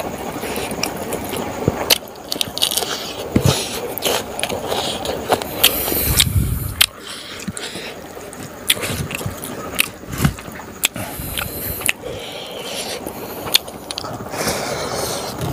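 A person eating rice and smoked pork by hand, close-miked. Wet chewing and smacking clicks mix with fingers scraping and pressing rice on a banana leaf, with a heavier scrape about six seconds in.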